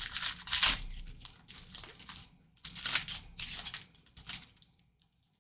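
Plastic wrapper of a Panini Prizm baseball card pack crinkling and tearing as it is ripped open by hand, in quick irregular crackles that fade out about four and a half seconds in.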